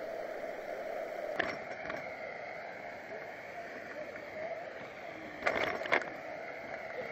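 Riding noise picked up by a bike-mounted action camera: a steady hum of wind and rolling tyres, broken by a few sharp knocks, a pair about a second and a half in and a louder cluster near the end.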